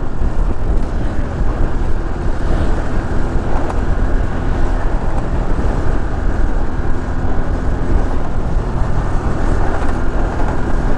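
Motorcycle running steadily at cruising speed, its engine drone mixed with heavy wind rush on the rider's microphone.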